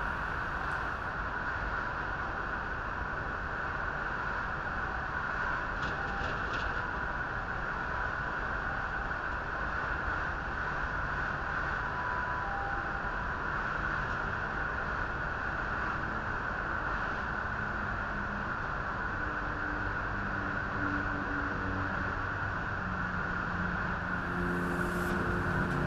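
Steady rumble and hiss of fire-truck engines running. A few held low tones come in near the end.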